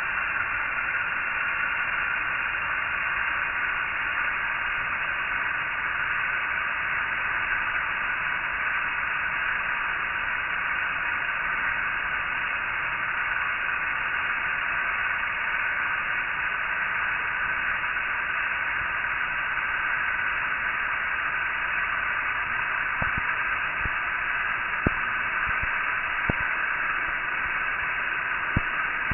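Steady hiss like radio static, with a few faint clicks in the last several seconds.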